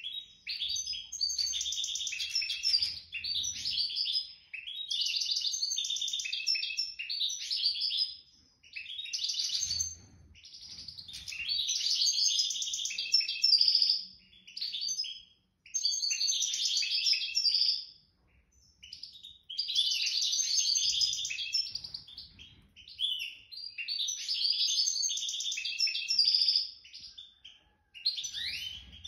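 A songbird singing a fast, twittering song in phrases a few seconds long, separated by short pauses, with a few faint low bumps.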